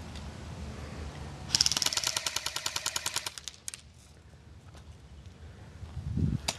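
Airsoft gun firing a rapid full-auto burst of about two seconds, a fast, even string of sharp cracks, followed by a few scattered single clicks and a low rumble near the end.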